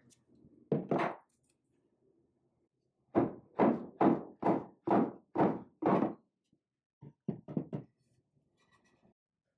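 Rubber mallet striking a wooden table rail at the leg joint, about eight heavy, evenly spaced blows of roughly three a second, knocking the rail's tenon out of the leg's mortise. A couple of thuds come about a second in, and four lighter, quicker knocks follow the run of blows.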